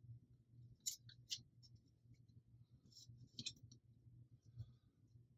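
Faint, scattered clicks and light scratches of hard plastic parts being handled and fitted, a few sharper ones about a second in and again past three seconds, over a faint steady low hum.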